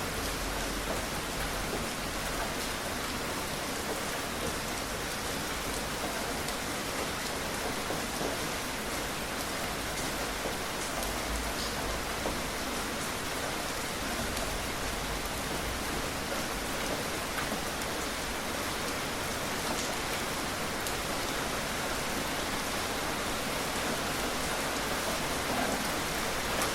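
Steady rain falling, an even hiss of many drops with scattered individual drop ticks.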